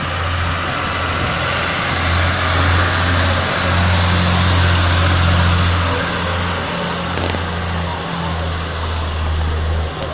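Box truck's diesel engine running at a steady low idle, louder around the middle, with a few faint clicks in the second half.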